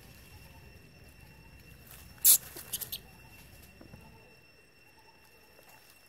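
A baby macaque gives one sharp, high-pitched squeak a little over two seconds in, followed by three quicker, fainter squeaks.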